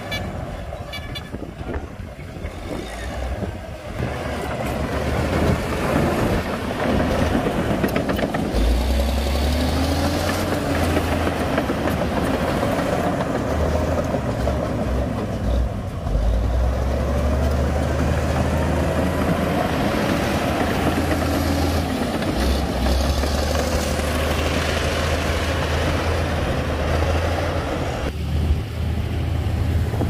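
Heavy diesel earthmoving machinery at work: bulldozer and dump truck engines running with a deep, continuous rumble, their pitch rising and falling a couple of times as they work.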